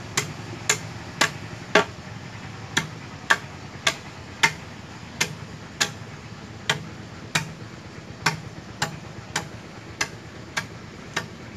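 Bladed knife (dao) chopping into the end of a green, unseasoned bamboo tube, one sharp knock roughly every half second with a couple of brief pauses, as the bamboo is cut to shape for a fish trap.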